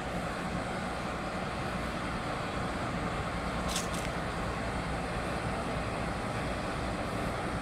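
ACE AF100D 10-ton diesel forklift engine running steadily, a low, even rumble. Two short hissing ticks come about halfway through.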